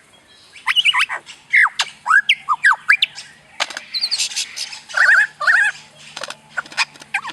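A pet bird calling: a quick run of short chirps and squawks that slide up and down in pitch, with two longer, wavering calls about five seconds in.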